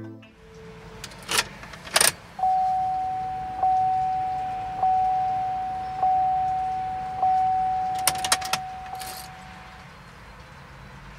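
Car ignition key clicking as it is inserted and turned to ON, then the dashboard warning chime sounding one steady ding about every second and a quarter, six times. A few more key clicks come near the end of the chimes as the key is turned back and pulled out.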